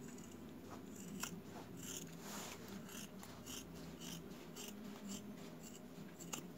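Large metal scissors cutting through a folded denim jeans leg, a run of crisp snips about two a second.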